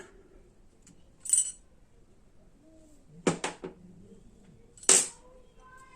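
Small steel parts of a half-inch 72-tooth ratchet clinking and clicking as the ratchet is taken apart by hand: a light clink about a second in, a quick double click around the middle, and a sharper clink near the end.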